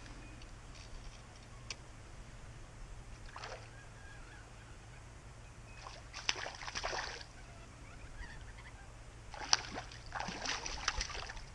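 A hooked fish splashing and thrashing at the water's surface while being played on a fly rod, in three short bursts about 3.5 s, 6 s and 9.5 s in, the last the longest.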